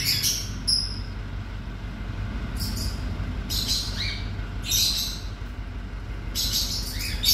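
Baby plantain squirrel (coconut squirrel) squeaking as it is fed from a syringe: about six short, high-pitched squeaks spread over a few seconds.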